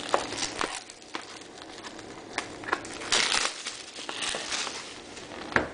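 Plastic shrink-wrap on a trading-card box being picked at and torn open, crinkling and rustling in irregular bursts, with a louder stretch about three seconds in and a sharp click near the end.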